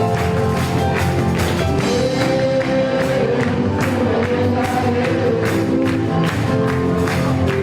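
Live gospel praise music: a band with drums and congregation singing together, with a steady beat.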